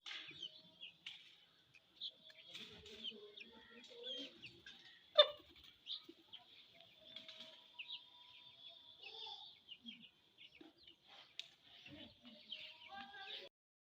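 Chickens clucking among many short, high bird chirps over a steady high-pitched hum, with one sharp knock about five seconds in.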